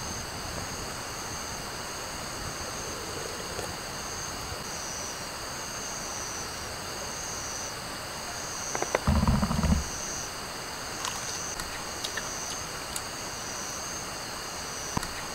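Night insects chirping steadily in pulses over a smouldering, smoky wood campfire that gives faint crackles, a sign that the firewood isn't catching well. About nine seconds in, a low rumbling noise lasts about a second.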